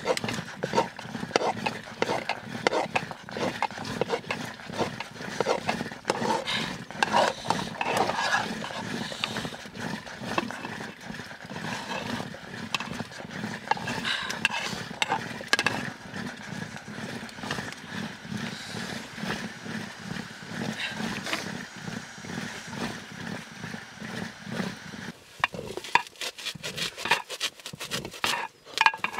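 A metal ladle stirs maize-flour porridge in a blackened iron pot over a wood fire, giving a rhythmic scraping and sloshing. Near the end the thickened dough is beaten with a metal rod, with sharper clicks against the pot.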